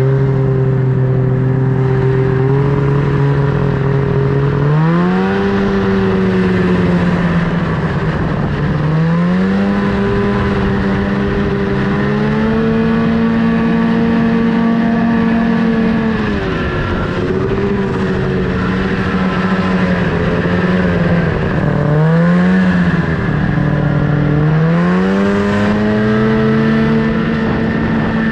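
Snowmobile engine running under a rider, its pitch climbing and dropping several times as the throttle is opened and eased off. It is steady for the first few seconds, climbs about five seconds in, dips and climbs again, holds high, then falls for a while before rising again near the end.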